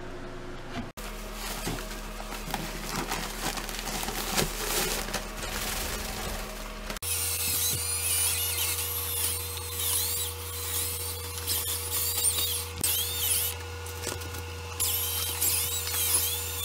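A drill spinning a bucket mortar mixer paddle through gritty dry-pack mortar in a plastic bucket: a steady motor hum under scraping and grinding of the sand mix. The sound cuts abruptly about a second in and again about seven seconds in.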